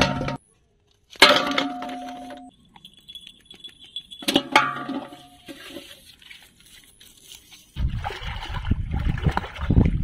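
Objects dropped into a large aluminium pot: two sharp clanks, about a second in and about four seconds in, each leaving the pot ringing briefly. Near the end comes a rough, low sloshing of water as the pot is taken into the pond.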